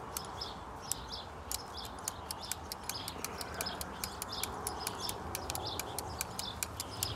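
Ratchet cable cutter clicking, about three clicks a second, as its handle is pumped to cut through 6mm 3-core steel-wire-armoured cable.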